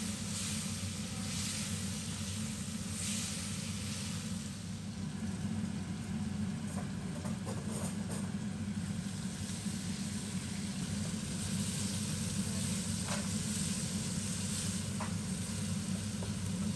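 Sliced meat frying in hot oil in a wok: a steady sizzle over a low hum, with a few light clicks of stirring.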